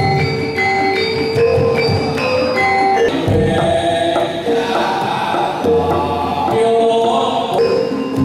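Javanese gamelan playing for a wayang puppet show: bronze metallophones ring a steady run of held notes while a large kendang drum is beaten by hand underneath.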